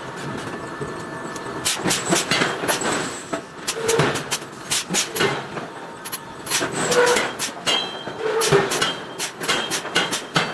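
Metal striking metal in forging work: a string of irregular, sharp clanks and blows, some leaving a short ring, over a steady background noise.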